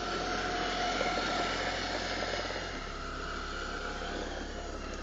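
A steady engine drone with a dense noisy rush and a few faint held tones, like an aircraft or propeller engine running.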